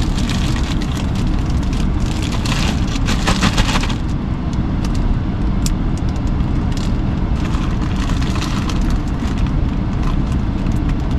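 Plastic zipper bag crinkling and rustling as frozen food inside it is broken up, then the bag's seal pressed shut. The crinkling is densest in the first four seconds and sparser after. Under it runs a steady low rumble of the parked pickup's engine idling.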